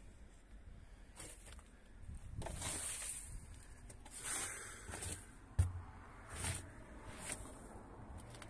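Footsteps crunching and scuffing through dry pine needles and debris on a rusty steel pickup-bed floor, with one sharp knock about two-thirds of the way in.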